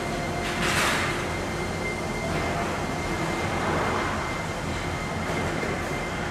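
New Shuttle rubber-tyred people-mover train pulling out of the station and running away, a steady rumble with a high whine, with a burst of hiss just under a second in.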